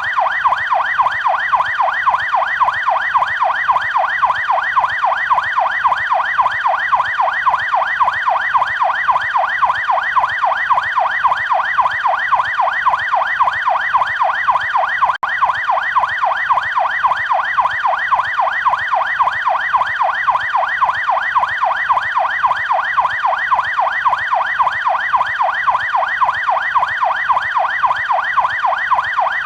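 Canadian police car siren on yelp: an electronic wail sweeping rapidly up and down several times a second, steady and unbroken apart from a split-second dropout about halfway through.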